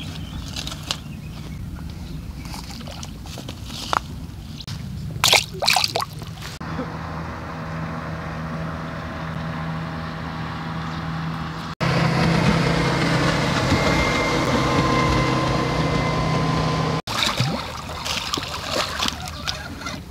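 Water sloshing with scattered knocks and clicks, and through the middle a steady motor hum that stops abruptly twice.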